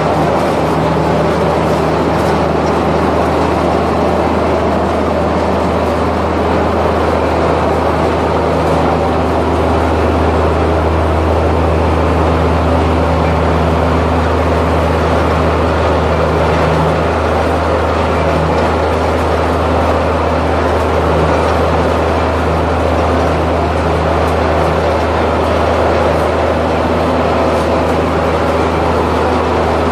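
A large machine running steadily, a loud, even, low drone with a deep hum that barely changes.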